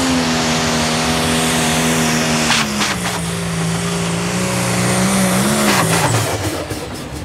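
Pro Stock diesel pulling tractor engine running flat out under load on the sled. Its note drops to a lower pitch about two and a half seconds in, lifts briefly near six seconds, then the revs fall away at the end.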